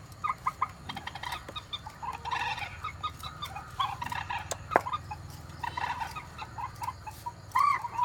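Recorded night-bird lure calls, the 'cuốc biển' (chích rẽ) bird-call recording from a USB, played through a small MP3 power amplifier into horn loudspeakers: short clucking calls in quick succession, with a couple of sharp clicks near the middle.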